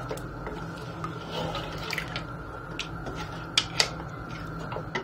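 Watery mutton curry gravy bubbling in a metal pot just after a glass of water has gone in, with scattered small pops and two sharper pops a little past halfway. A steady hum runs underneath.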